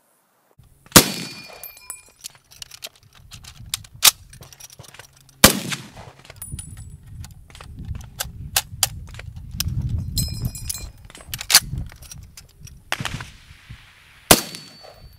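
M1 Garand and M14 rifles fired and reloaded: four loud rifle shots with echo, the first about a second in, one near the middle and two near the end, with many metallic clicks and clacks of clips, magazines and bolts being worked between them.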